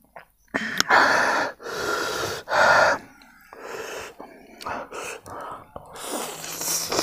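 A man gasping and blowing out hard breaths, three loud ones in the first three seconds, from the burn of a dry king chilli (Naga pepper). Near the end, a long slurp of noodles.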